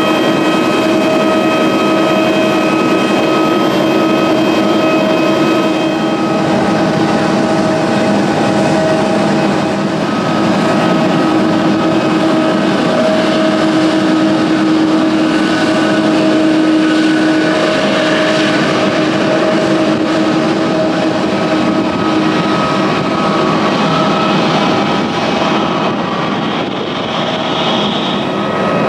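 Jet aircraft engines and auxiliary power units running on an airport apron: a steady whine of several tones over a broad rushing noise, the tones shifting partway through.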